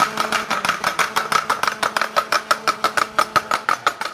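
A Holy Week matraca, the wooden clapper, clacking in a fast, even rhythm of about seven strokes a second, each stroke with a short ringing knock. A faint steady hum lies beneath.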